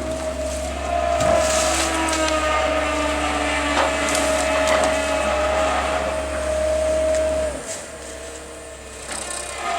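Excavator engine and hydraulics running under load with a steady whine, with a few sharp cracks of wood splitting. The engine eases off nearly eight seconds in and picks back up at the end.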